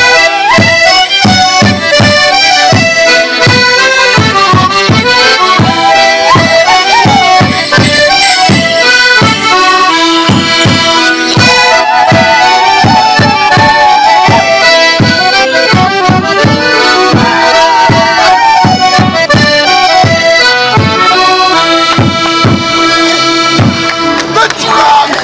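Border Morris band playing a lively folk dance tune on piano accordion and fiddle over a steady bass drum beat.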